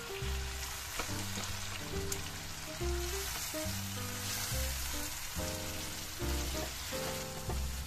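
Minced beef and grated tomato sizzling in a frying pan as they are stirred with a spatula, a steady hiss. Background music with held melodic notes plays over it.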